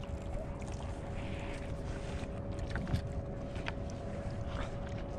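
Steady wind and water noise around a kayak at sea, with a faint steady hum and a few light taps scattered through.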